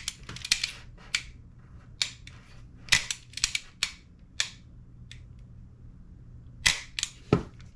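Metal parts of a gas blowback airsoft rifle clicking and knocking as they are handled and fitted together. About a dozen sharp, irregular clicks, with a quiet spell in the middle before a few more clacks near the end.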